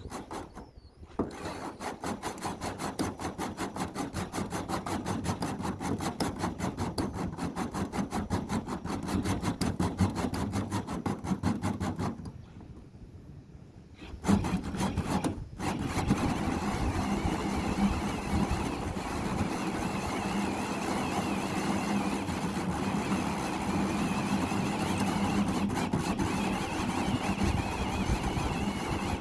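A cutting tool working through material with a fast rasping rhythm. It stops briefly about halfway, then resumes as a steadier grinding.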